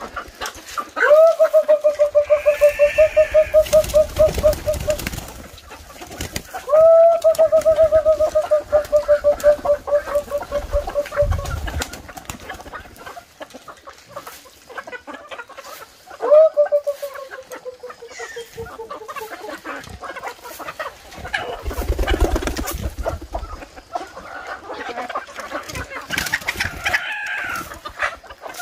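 Chickens clucking as they are fed grain, with three long drawn-out calls, each rising sharply at the start and then held for a few seconds; the last one slowly drops in pitch.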